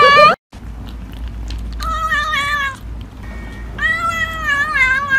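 Grey kitten meowing twice in drawn-out, wavering calls, about two seconds in and again near the end.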